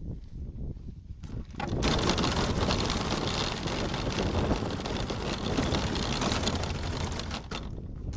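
Go-kart running, its noise rising sharply about two seconds in and dropping back near the end.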